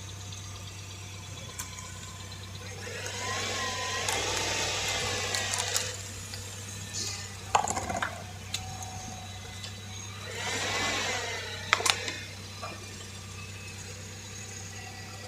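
Objects being crushed: two swelling passages of crunching, each about two to three seconds long, with a few sharp cracks and snaps, over a steady low hum.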